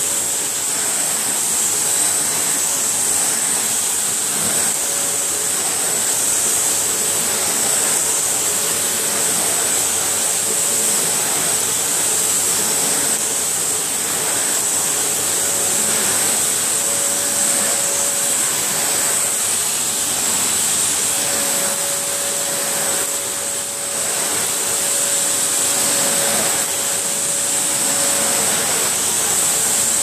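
Vacuum cleaner running steadily, its floor head pushed over carpet: a constant rush of air with a steady high whine from the motor.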